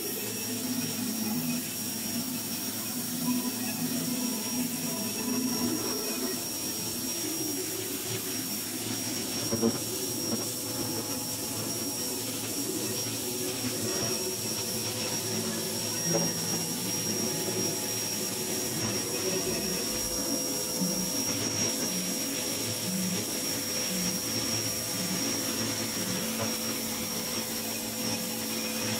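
Ryobi electric pressure washer running steadily, its motor and pump humming with a constant high tone over it, while the water jet hisses against the concrete.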